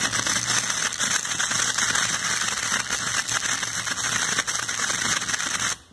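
Washing-machine drain pump running loudly with a harsh, fast rattle: its impeller shaft shakes with play in a worn bushing. It cuts off suddenly near the end.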